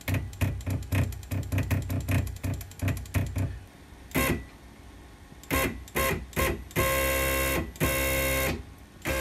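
CNC router X-axis stepper motors jogging a belt-driven ball screw. First a quick run of single steps, about four to five a second, then a few separate steps, then two short continuous moves with a pitched whine near the end.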